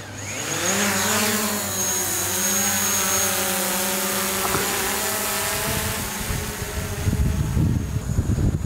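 DJI Mavic Pro quadcopter's propellers spinning up for takeoff with a rising whine, settling into a steady buzzing hum as it flies, then fading out after about six seconds. A low rumbling noise takes over near the end.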